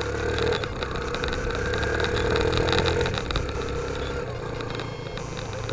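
Motorcycle engine running under way, heard through a camera mounted on the bike. The engine note rises a little and grows louder towards the middle, then eases off.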